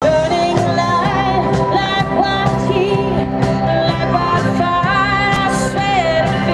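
Band music with a singing voice over a steady beat and bass, from a town festival's live band.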